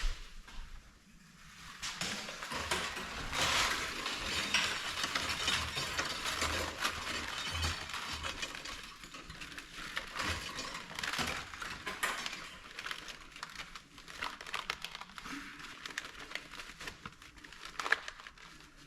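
Metal scrap being worked by hand: a dense run of rapid metallic clicking, clinking and scraping that starts about two seconds in, with a sharp knock near the end.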